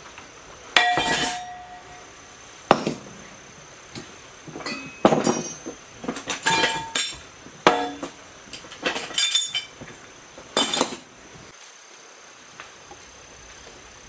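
Metal parts and tools clinking and knocking together: an irregular run of sharp strikes, some with a short ringing tone.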